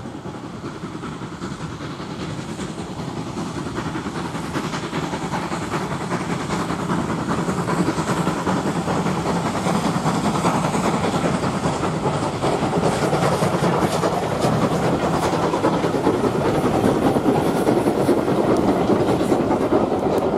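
NCB 'Austerity' 0-6-0 tank steam locomotive working a train of coaches past, its exhaust and the running of the train growing steadily louder, with the clicks of wheels over rail joints coming through in the second half.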